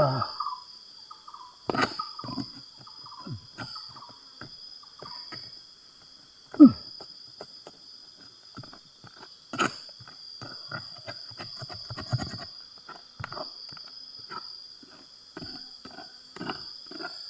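Steady high-pitched insect chorus of crickets or cicadas, with irregular knocks and scrapes throughout; the loudest is a sharp hit about six and a half seconds in.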